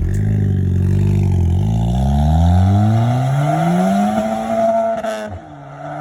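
Mk7 Ford Fiesta ST's engine through a KMS Hurricane twin-exit exhaust, accelerating loudly: the pitch climbs steadily for a few seconds, then falls sharply about five seconds in as the revs drop.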